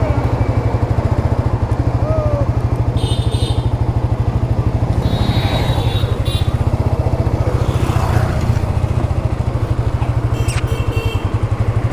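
Motorcycle engine running steadily at low speed as the bike rides slowly off, its exhaust pulsing, heard from on the bike.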